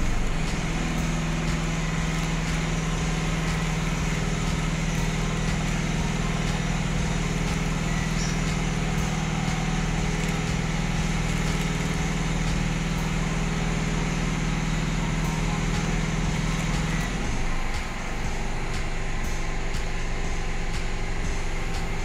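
Microwave oven running with its outer case removed, after its button keypad was repaired: a steady low hum over a continuous whir. The hum cuts off suddenly about 17 seconds in, leaving the whir.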